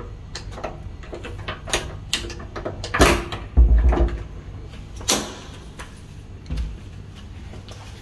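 A Yale rim night latch being worked by hand, giving a string of sharp metal clicks, with the wooden front door knocking and thudding heavily about three seconds in as it is opened and shut.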